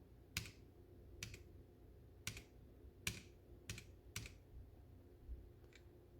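Mechanical keyboard with Gateron switches: one key pressed again and again, the right arrow key with Fn held, about seven separate clicks spaced irregularly half a second to a second apart.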